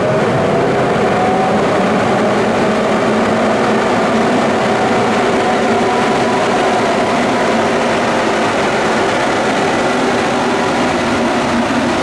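ÖBB class 1144 electric locomotive passing slowly at close range, its traction-motor cooling blowers making the loud, steady whooshing whine that earned the class its nickname 'Alpine vacuum cleaner', with a few held tones over the rush of air. Near the end the container wagons it hauls begin to roll past.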